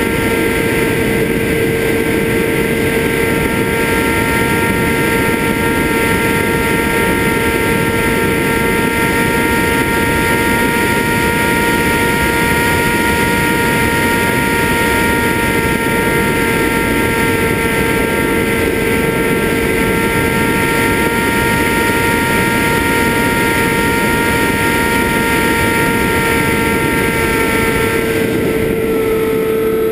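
FPV quadcopter's motors and propellers running with a steady, multi-pitched whine over rushing noise; the pitch shifts near the end.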